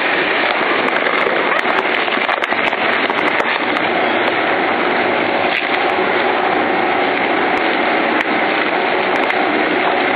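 Electric twin-shaft industrial shredder (Lion Shredder EVO) running at normal speed under load: its counter-rotating cutter discs tear and crush bagged waste, giving a steady, loud grinding with many crackling snaps as the plastic and its contents break up.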